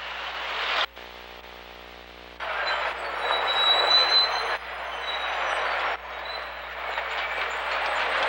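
City street noise with passing traffic in old video footage, jumping abruptly in level several times at cuts between clips, with a quieter stretch with a faint hum about a second in.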